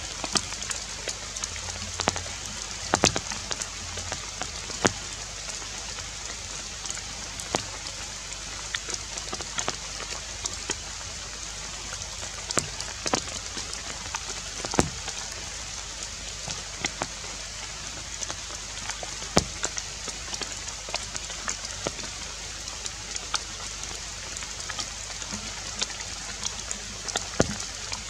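Steady outdoor background hiss with many scattered, irregular sharp clicks and pops.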